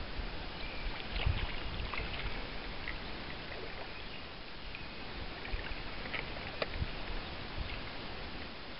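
Lake water lapping and sloshing at the wading angler's legs while he plays a hooked trout, with a low unsteady rumble and a few faint clicks.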